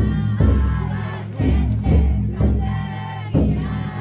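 Large taiko drum of a futon-daiko festival float struck repeatedly at an uneven beat, under the chanting and shouting of the crowd of bearers.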